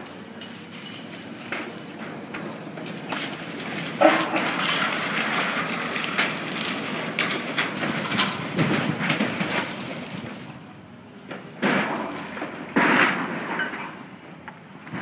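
Demolition-site noise from a brick wall being torn down: irregular knocks and clatter over a steady rushing background, with louder crashes about four seconds in and twice near the end.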